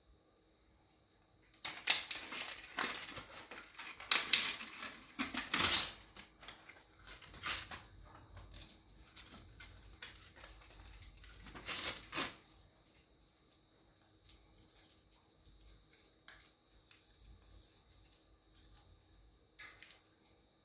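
An African grey parrot working at a toy with its beak: irregular clicking, rattling and crinkling. The busiest stretch is in the first few seconds, with a loud burst about twelve seconds in, then scattered fainter ticks.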